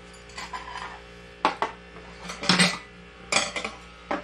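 Metal chopsticks clinking against ceramic side-dish bowls as food is picked up, four sharp clinks about a second apart.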